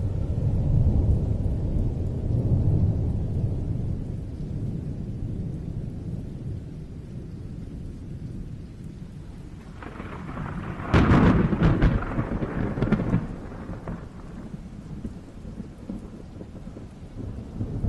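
Thunder: a low rolling rumble for the first few seconds that dies away, then a sharp close crack about eleven seconds in, crackling for a couple of seconds before fading.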